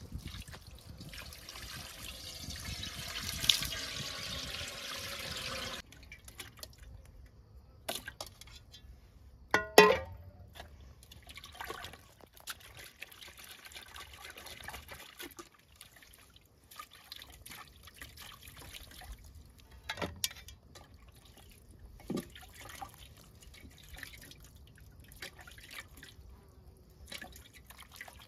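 Water poured from a plastic jug into a metal pot, rising in pitch as the pot fills and stopping about six seconds in. Then splashing and dripping as raw meat is washed by hand in the water, with a sharp knock and a short ring about ten seconds in.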